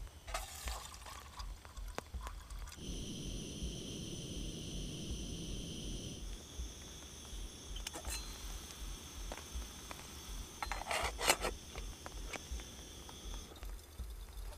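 Beechnut coffee heating toward the boil in a metal canteen cup on a gas stove. A steady high whine runs through most of it, and the cup's metal lid clinks as it is lifted, loudest a little past the middle.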